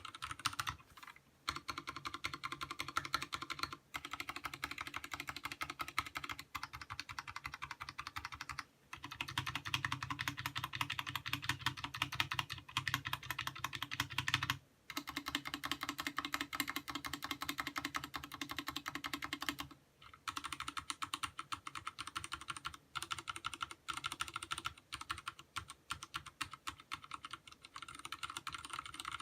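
Fast, continuous typing on a Vortex Race 3 mechanical keyboard with linear Cherry MX Speed Silver switches and DSA-profile keycaps: a dense run of keystroke clicks, broken by a few short pauses.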